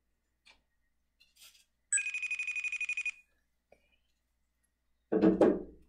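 Telephone ringing: one electronic trilling ring, just over a second long, about two seconds in, as a call goes through. A short, louder burst of noise follows near the end.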